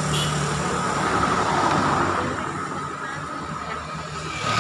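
Road traffic: passing vehicles' engines and tyres on the road, swelling to a peak a second or two in and then fading away.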